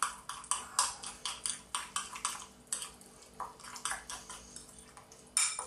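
Metal spoon stirring a wet curry paste in a ceramic bowl, scraping and clinking against the bowl in quick strokes, about four a second. There are brief lulls, and one louder stroke comes just before the end.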